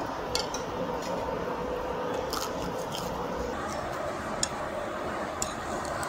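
Close-miked eating: biting and chewing a mouthful of salad and grilled eel, with a few sharp clicks and crunches, over a steady background hum.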